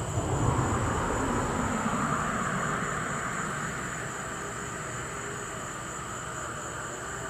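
A vehicle passing by, swelling about half a second in and slowly fading over the next few seconds, over a steady high-pitched chirring of insects.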